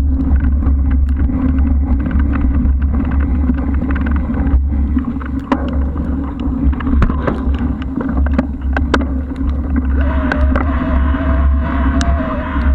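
Wind rumbling on the microphone of a camera mounted on a moving bicycle, with scattered clicks and rattles from the bike going over rough ground. A wavering whine joins in about ten seconds in.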